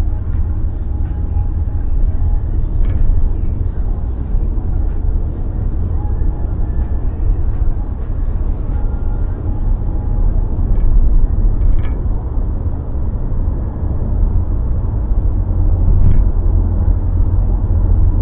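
A car being driven: a steady low rumble of road and engine noise, with a faint click about twelve seconds in and another near the end.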